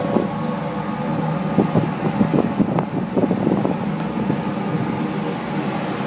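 Steady hum of steam boiler-plant machinery, with a cluster of knocks and metallic clatter between about one and a half and four seconds in.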